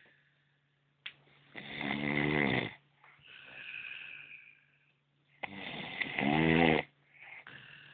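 A sleeping man snoring heavily: two long, loud snores about four seconds apart, each followed by a softer breath out.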